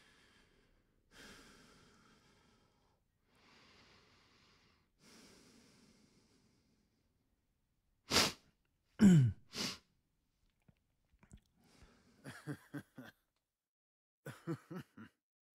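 Close breathing into a phone microphone, then a few loud sneeze-like bursts about eight seconds in, one sliding down in pitch. Near the end come two quick runs of short breathy pulses, like stifled laughter.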